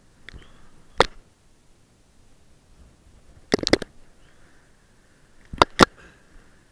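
Footsteps on rocky ground: boots scuffing and clacking on loose stone slabs in a few sharp knocks, one about a second in, a quick cluster a little past halfway, and two close together near the end.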